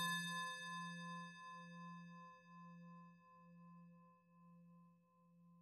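A singing bowl struck once, ringing with a low note and several higher overtones that die away slowly, the highest first, while the level wavers about once a second.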